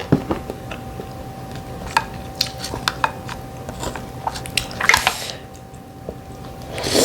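Close-up eating sounds: chewing and wet mouth sounds of mussels and ramen noodles, with scattered small clicks and a short louder, wetter sound about five seconds in. A faint steady hum sits underneath.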